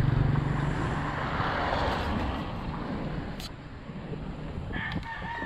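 Steady rushing noise of travel along a road, and near the end a rooster starts crowing, one long held call.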